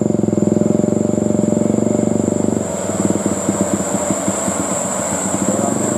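Bus telolet multi-tone air horn sounding a loud held chord, then breaking into a rapid stuttering pattern about two and a half seconds in.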